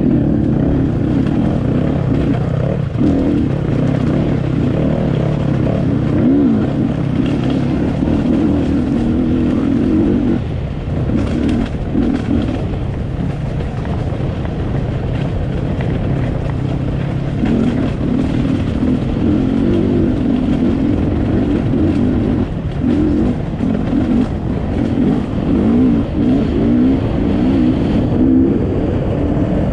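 Enduro motorcycle engine running hard and close by, its revs rising and falling as it is ridden, with brief drops in revs every few seconds.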